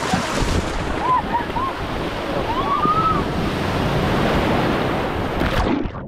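Small sea waves breaking and washing up the shore, with wind buffeting the microphone. A few short high calls rise above the surf about a second in and again near three seconds, and the sound falls away at the very end.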